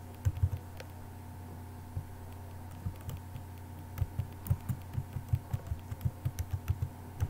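Computer keyboard being typed on: a few keystrokes just after the start, then a quick run of keystrokes over the last three seconds. A steady low hum runs underneath.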